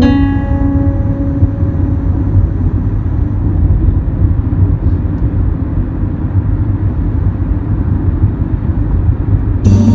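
Steady low road and engine rumble heard inside a moving car's cabin. The last notes of guitar music fade out in the first couple of seconds, and music comes back in near the end.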